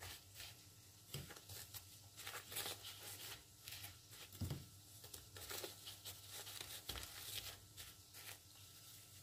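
Faint gritty rustling and scraping of cinnamon sugar as a fried dough ring is pressed and turned in it on a plate by hand, with a couple of soft thumps.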